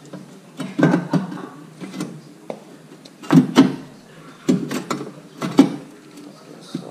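A handful of separate clunks and knocks with some rattling between them, from metal parts and tools being handled.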